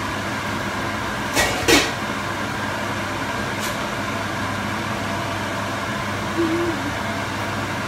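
Two sharp clatters of kitchen utensils against a stainless frying pan about a second and a half in, and a fainter one a couple of seconds later, while a pan of cabbage and noodles is tossed with a wooden spatula. A steady fan-like hum runs underneath.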